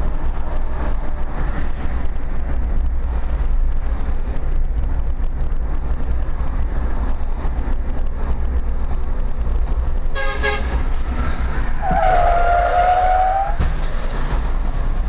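Steady low rumble of a moving car's road and engine noise picked up by a dashcam, with two car horn honks: a short one about ten seconds in and a longer, stronger one about two seconds later.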